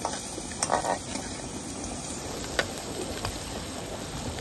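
Peas, carrots and capsicum frying in oil in a steel wok, a steady sizzle, with a few sharp clicks, the loudest a little under a second in.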